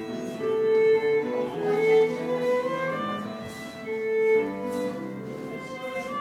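Fiddle music for English country dancing: a bowed melody of held notes.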